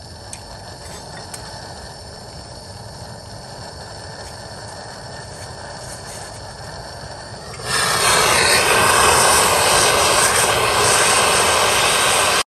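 A MAP gas torch lights about eight seconds in and burns with a loud, steady hiss as the flame is held on the brake rotor's Torx retaining screw to heat it loose. A quieter steady hiss comes before it.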